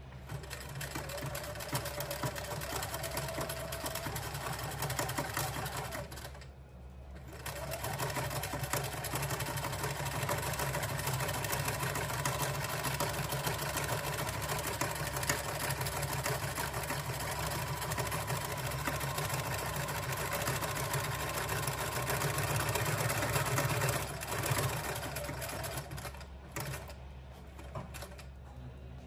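Electric sewing machine stitching through a thick wool-embroidered cushion front, running steadily with a brief stop about six seconds in, then running on and easing off a few seconds before the end.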